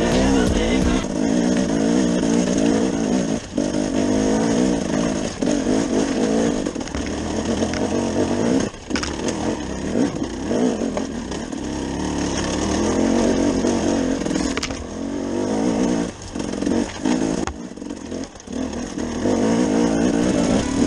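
KTM 250 EXC two-stroke enduro motorcycle engine running under load on the trail, heard from on board, its note rising and falling with the throttle and dropping off briefly several times as the throttle closes.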